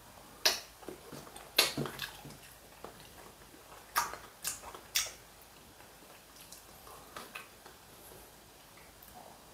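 A person chewing a mouthful of braised eel and kimchi, with a handful of sharp clicks and taps, three close together between four and five seconds in, as chopsticks are laid on a plate and a glass is picked up from the table.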